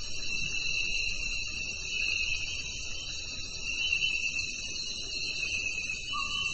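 Steady chorus of insects: a continuous high-pitched trill at an even level. A lower steady note joins briefly near the end.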